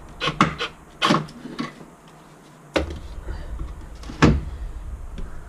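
Knocks and clatters of hand tools and metal fittings being handled at the gearbox ECU housing as its screws come out, about five sharp separate knocks with no drill whir between them.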